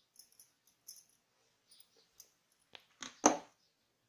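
Light clicks and taps of small kitchen utensils as herbal paste is mixed into milk in an infant feeding vessel, then one sharp knock about three seconds in.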